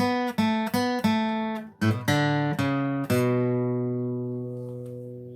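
Acoustic guitar playing a simple single-note intro riff in D, picked note by note at about three notes a second, then a few quicker notes. It ends about three seconds in on notes left to ring and slowly fade.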